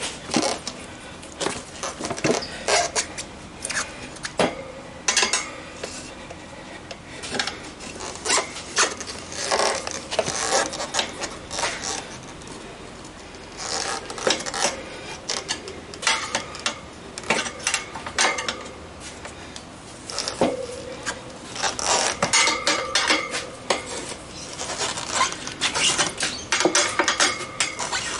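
Metal tyre levers clinking, knocking and scraping against a motorcycle wheel rim as a tyre bead is levered off by hand. There are irregular clanks all through, with a few short ringing squeaks.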